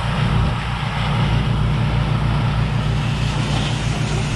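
Pressure washer running steadily: a constant engine drone under the even hiss of the high-pressure spray.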